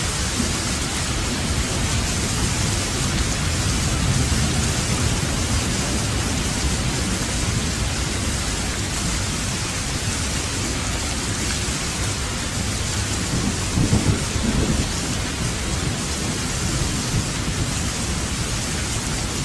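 Heavy rain pouring in a steady, dense hiss, with low thunder rumbling through it, loudest about fourteen seconds in.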